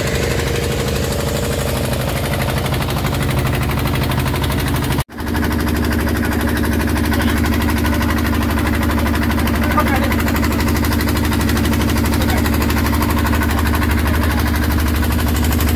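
Motorboat engine running steadily at cruising speed, heard from on board. About five seconds in, the sound cuts out for an instant and resumes.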